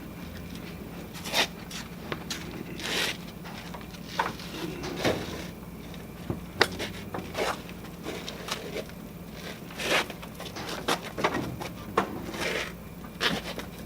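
A steady low machine hum with irregular knocks, clicks and scrapes, as of heavy steel pieces and tools being handled in a metal shop.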